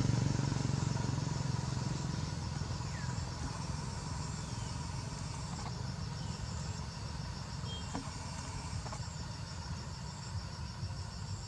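A motorcycle riding away, its engine fading over the first few seconds into a low steady traffic rumble, while insects chirp in an even, rapid pulsing rhythm throughout.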